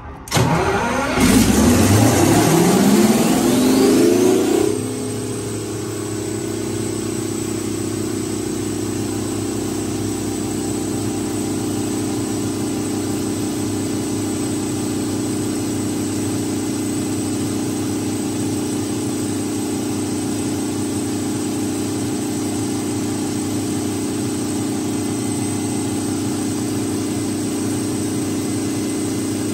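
Detroit Diesel 12V-149 two-stroke V12 diesel engine of a 1250 kW generator set starting: it catches and speeds up with rising pitch for about four seconds, then drops a little in level and settles into a steady run at its governed 1800 rpm.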